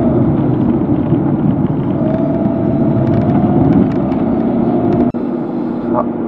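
A car's engine and road noise heard from inside the cabin while driving, a steady low rumble with a faint whine that rises slightly in pitch from about two seconds in. The sound dips for an instant about five seconds in.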